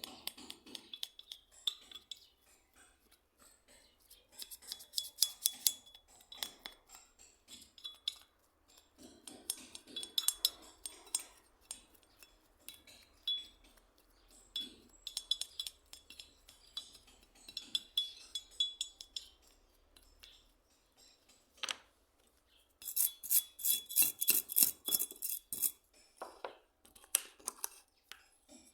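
Metal parts of a hand plane being worked by hand: bursts of quick metallic scraping strokes with a thin ringing tone, the longest and loudest burst near the end.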